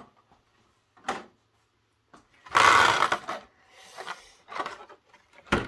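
Clear plastic packaging of a model railway coach being handled and opened by hand. There is a click about a second in, a loud rustle of plastic about two and a half seconds in, lighter scratchy rustling after it, and a sharp click near the end.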